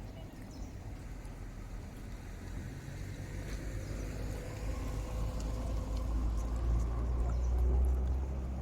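A motor vehicle's low engine rumble, building over several seconds as it comes closer and loudest near the end.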